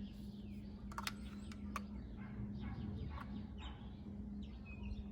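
Birds calling in the background, with a few sharp clicks about a second in and a steady low hum underneath.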